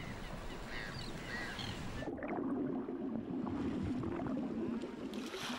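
A few faint gull calls in the first two seconds. About two seconds in, the sound changes to muffled sloshing and gurgling of seawater at the surface.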